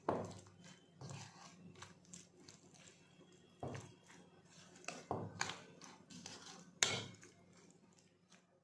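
A metal spoon stirring a thick, wet mixture in a bowl: soft scraping with irregular clinks and knocks of the spoon against the bowl, the sharpest right at the start and again near the end.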